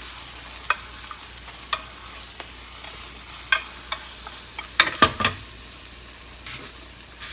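A thin layer of beaten egg sizzling quietly in an oiled pan on medium-low heat as it is rolled up into a rolled omelette, with scattered light clicks and taps of a utensil against the pan and a cluster of sharper clicks about five seconds in.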